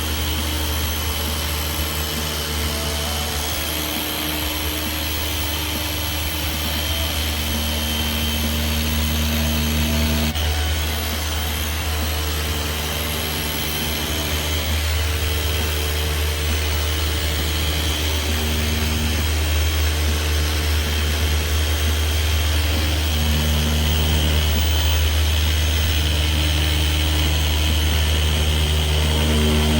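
Dual action polisher running steadily with a constant low hum, working a one-step polish across a plastic headlight lens.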